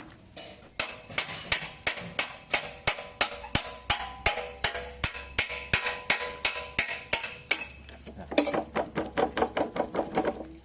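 Hammer blows on steel excavator parts, each strike ringing with a metallic tone: a steady run of about three blows a second, then after a short pause a quicker flurry of about five a second, typical of driving out or knocking home an arm pin.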